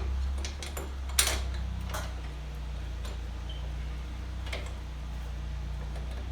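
A few sharp clicks and clinks of metal hardware and hand tools being handled, the loudest about a second in, over a steady low hum.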